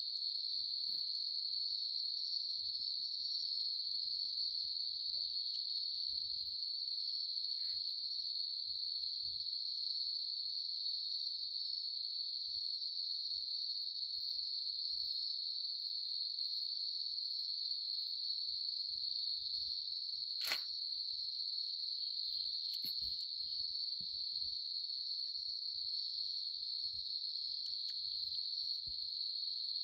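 Steady night insect chorus: a continuous, even, high-pitched sound with no break. There are faint low scuffs, and one sharp click about two-thirds of the way through.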